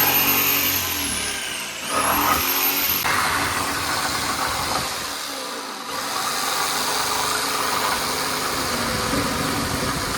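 Power saw cutting through a wooden countertop, the motor running under load. Its high whine drops as the blade bogs down about two seconds in, then climbs again as the cut carries on.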